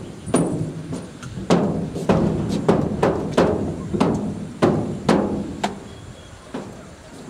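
Percussion: about a dozen sharp, ringing strikes in an uneven rhythm, stopping near the end.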